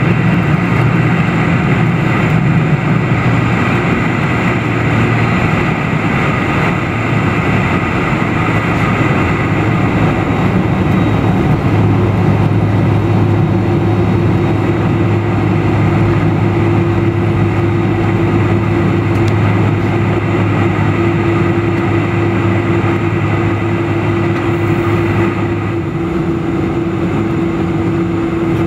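Cabin noise of a Boeing 747-400's General Electric CF6 engines and rushing air, heard beside the wing. A steady roar, with a low hum that comes in about halfway through and a higher hum joining later as the jet rolls out on the runway.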